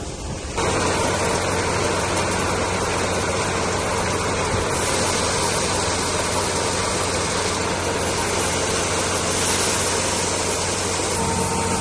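A vehicle engine running steadily at idle, coming in sharply about half a second in.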